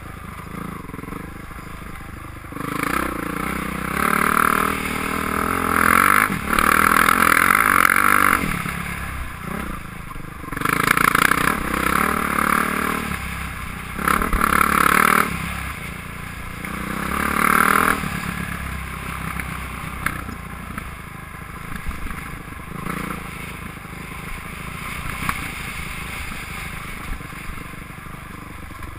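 Dirt bike engine running under way, rising in repeated surges of one to two seconds as the throttle is opened and closed, then settling to a steadier, lower drone in the last third.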